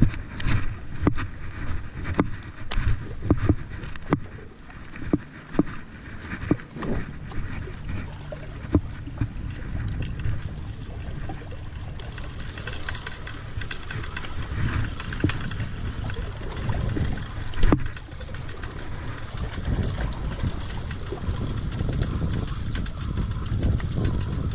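Footsteps crunching and knocking over loose limestone rocks, then a spinning reel being cranked to bring in a hooked fish, with a steady high whine from about the middle on.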